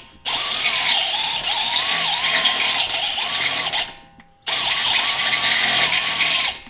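Power drill driving a 7/8-inch step bit through a metal mounting hole on the Jeep's steering, its motor pitch wavering as the bit bites. It runs in two long spells with a short pause about four seconds in.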